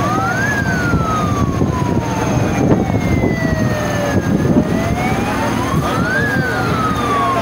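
Emergency-vehicle siren on a slow wail: the pitch climbs over about two seconds, then sinks slowly for about four, and climbs again near the end. A heavy vehicle's engine runs steadily underneath.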